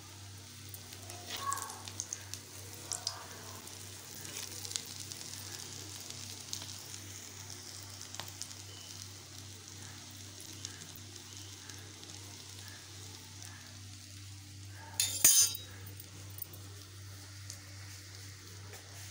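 Oil sizzling steadily as round breaded patties shallow-fry in a black wok, with a few light clicks in the first few seconds. A short, loud clatter comes about fifteen seconds in.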